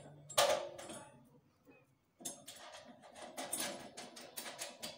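Clinks and scrapes of metal parts being handled on the back of a satellite dish while the mounting bracket is fitted: one louder clank about half a second in, a short pause, then a run of irregular small clicks.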